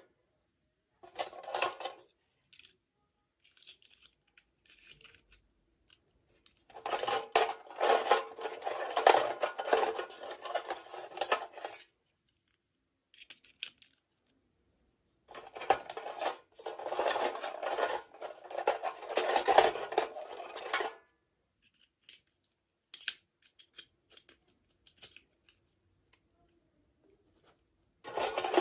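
Packaging being handled and crinkled in two long rustling bursts of several seconds each, with a shorter one near the start and scattered small clicks and taps in the gaps.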